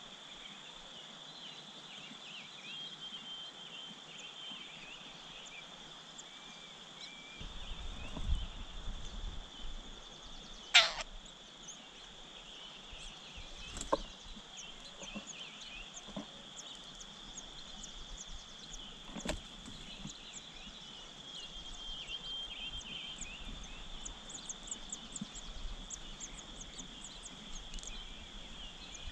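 Outdoor nature ambience: a steady high-pitched drone with short, high bird chirps that come faster and thicker near the end. Low wind rumble sets in about a quarter of the way through, and there are a few sharp clicks, the loudest one about a third of the way in.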